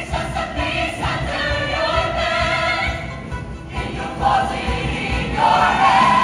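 A large mixed show choir singing in full chorus with live band accompaniment, building to a loud held chord near the end.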